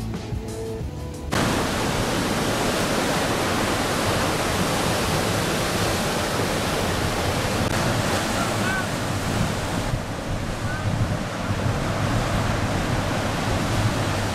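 Heavy surf from big waves breaking, with wind blowing on the microphone, a steady dense rush of noise. A music track cuts out abruptly about a second in.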